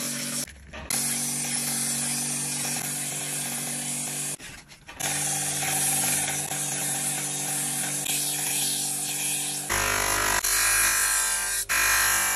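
Motorised belt grinder running as the steel edge of a letter opener is ground against the belt: a steady motor hum under a grinding hiss, broken twice by brief gaps. About ten seconds in, the sound changes to a spinning buffing wheel polishing the edge, with a deeper rumble.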